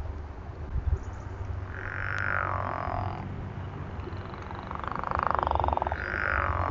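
Frogs calling: three pulsed calls about a second each, the second a few seconds after the first and the third close behind it. Faint high bird notes and a steady low rumble run underneath.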